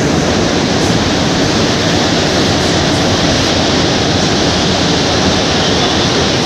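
Montreal Metro rubber-tyred train running at speed through a tunnel, heard from inside the car: a loud, steady rush of tyre and tunnel noise.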